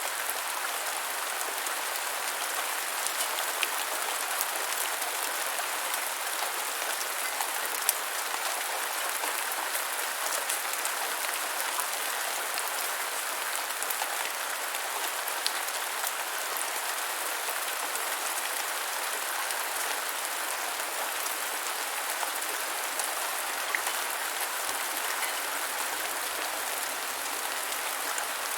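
Steady rain falling on the ground: an even hiss dense with small drop impacts, unchanging throughout.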